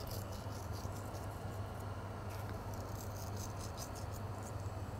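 Coarse salt sprinkled by hand onto raw halibut fillets on a wooden cutting board: faint scattered ticks of falling grains, thickest from about halfway through. A steady low hum runs underneath.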